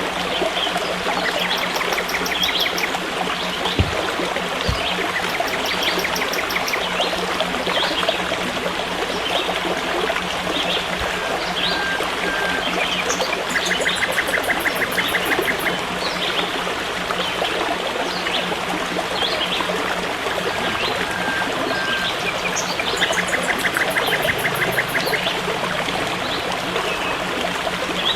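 A forest stream trickling and running steadily. Short rapid high trills recur every few seconds over the water.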